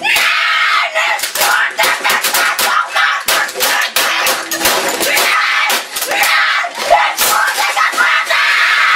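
A boy screaming in rage while pounding and smashing a computer keyboard against the desk: many sharp, rapid blows, a few a second, under loud, distorted screaming.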